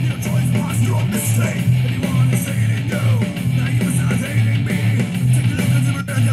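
Rock music with electric guitar and heavy, pulsing bass playing through an OTIC 2.1 soundbar and its wireless subwoofer, heard in the room.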